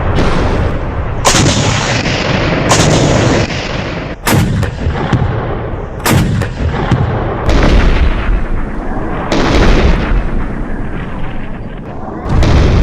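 Gunfire from heavy guns: about seven loud shots, one every second or two, over a continuous rumble.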